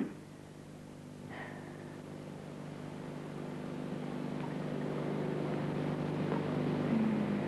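A low, steady engine-like drone that slowly grows louder, with a short knock at the very start.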